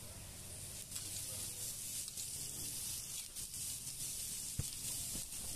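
Chopped onions, tomato and curry leaves frying on a hot flat iron griddle: a faint, steady high sizzle with an occasional light tick.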